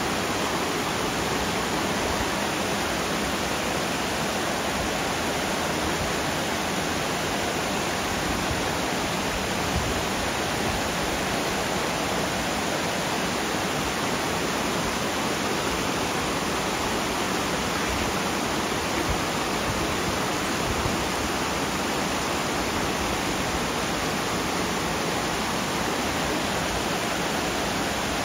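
A small waterfall: water pouring and splashing steadily over rocks.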